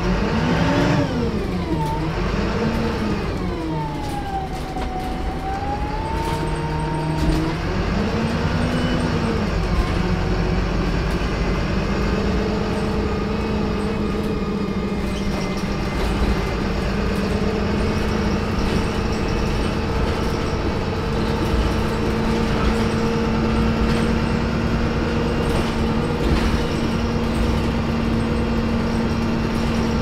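Inside a VDL SB200 Wright Pulsar 2 single-deck bus on the move: engine and turbo whine rising and falling in pitch for the first several seconds, then settling into a steady hum over the road rumble, with light interior rattles.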